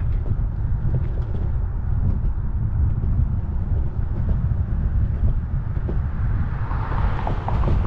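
Wind buffeting the microphone and road rumble from a scooter riding over a cracked concrete street, with a few faint knocks. A short swell of hiss comes about seven seconds in.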